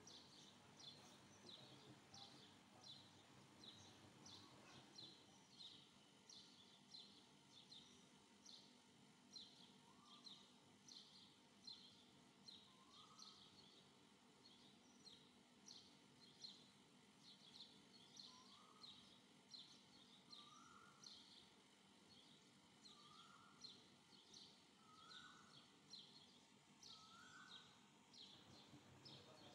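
Faint chirping of small birds: quick high chirps repeated about twice a second, joined from about ten seconds in by short rising calls every few seconds.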